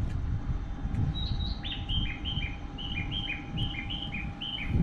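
Bird chirping: a short two-note call, a higher note then a lower one, repeated steadily from about a second in, over a low rumble.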